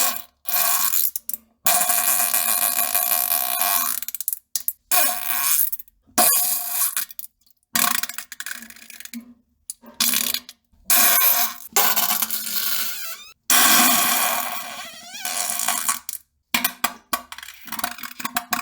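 A string of fart sounds, about a dozen in a row, some short and some lasting a couple of seconds, each cut off by a sudden silence before the next. A few of them rise in pitch toward their end.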